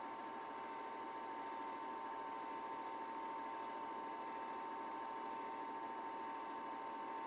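8mm film projector running: a steady mechanical whir with a constant high whine.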